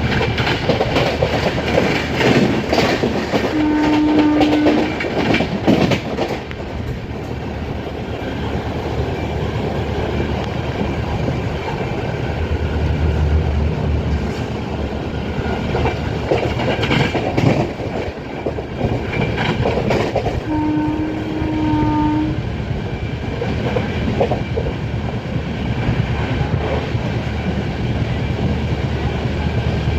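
Passenger train running along the track, with a steady rumble and clusters of wheel clicks over rail joints. The locomotive horn sounds twice, a short blast about four seconds in and a longer one, over a second long, about twenty seconds later.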